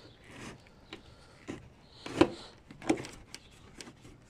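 Plastic front bumper cover of a 2013 Hyundai Genesis sedan knocking and clicking as it is pushed back into place by hand against the fender: about five short, sharp knocks, the loudest about two seconds in.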